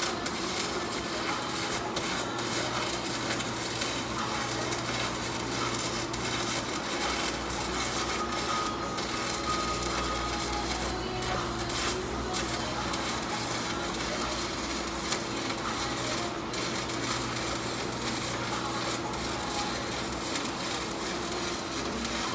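Electric arc welding on a steel dump truck bed: the arc's steady crackling sizzle, with a low steady hum beneath it.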